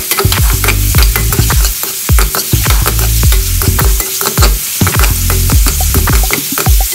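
A spatula scraping and clicking rapidly against an aluminium wok as chicken pieces are stirred and turned, over the sizzle of frying in hot oil.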